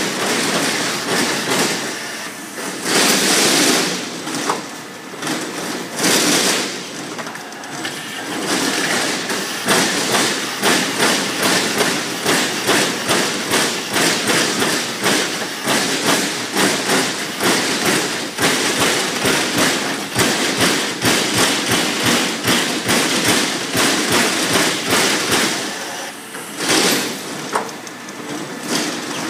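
TRUMPF TruPunch CNC punch press punching holes through sheet metal, a long, even run of sharp strikes several times a second, with a few louder bursts of noise in between.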